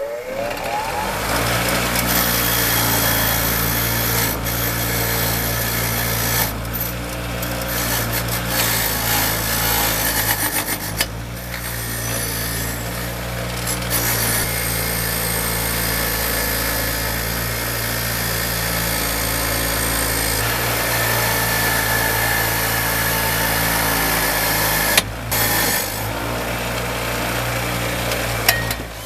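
Handheld power tool spinning up, then running steadily with a coarse abrasive rasp against a workpiece, easing off briefly a few times and stopping at the end.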